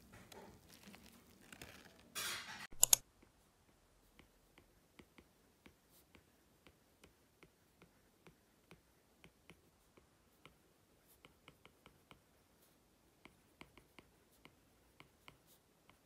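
Faint, light taps of a stylus tip on a tablet's glass screen while handwriting notes, irregular at roughly one to two a second. Near the start, a brief clatter and two sharp clicks come just before the tapping begins; these are the loudest sounds.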